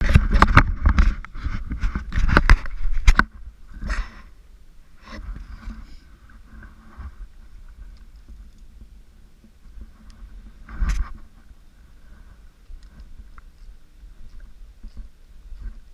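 Hard knocks and scraping of gear being handled in a small fishing boat, loud and dense for about the first three seconds. This gives way to a low steady rumble with scattered small clicks, and one louder knock about eleven seconds in.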